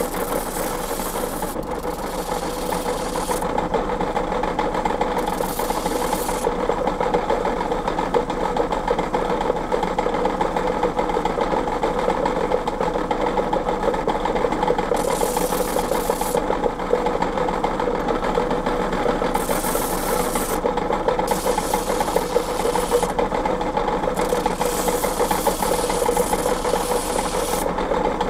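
Motor-driven grinding wheel of a Solingen Pliestbock running with a steady hum while a table knife is ground at the joint between blade bolster and handle to take off lead residue. A higher hiss comes and goes in stretches over the steady hum.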